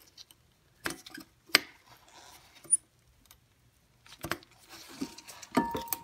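Sharp metallic clicks and clinks from rear brake pad hardware being pushed and popped off the caliper bracket, a handful spread over several seconds with faint scraping between.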